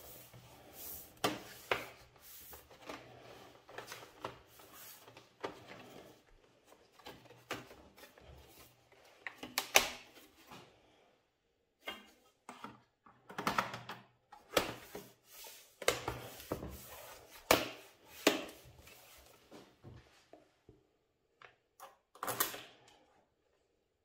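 Bottom cover of an Alienware 15 R3 laptop being handled and fitted back onto the chassis: scattered clicks, taps and short knocks of the panel against the case as it is pressed into place, in several quick clusters.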